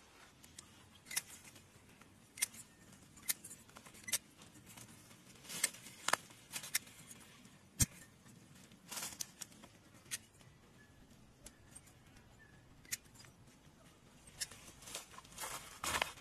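Kumquats being picked from the bush: irregular sharp snaps and clicks of stems breaking, with leaves rustling. Near the end there is a longer stretch of rustling as someone walks through the bushes over dry leaf litter.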